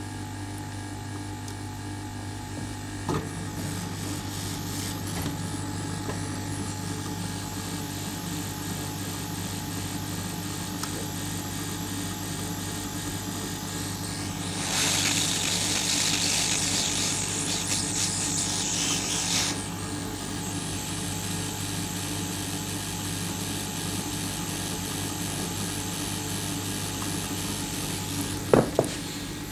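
Steady low electrical mains hum with a faint hiss while a replacement 7400 IC is soldered onto the board. About halfway through, a stronger high hiss lasts around five seconds, and two light clicks come near the end.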